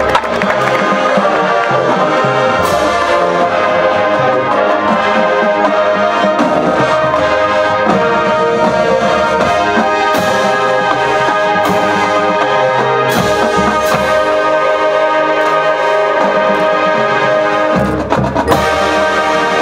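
A high school marching band playing live, with the brass section holding full sustained chords. Percussion hits come now and then, and there is a short break and a fresh attack near the end.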